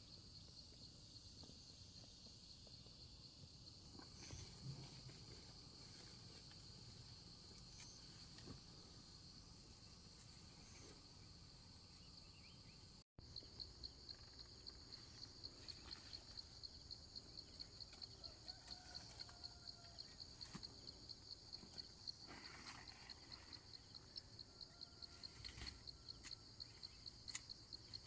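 Faint, high-pitched insect chorus. It is a steady drone at first; after a short dropout about halfway, it becomes a fast, evenly pulsing trill.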